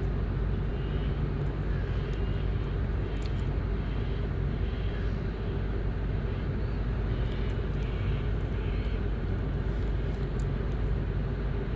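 Steady low outdoor rumble, with faint short chirps now and then.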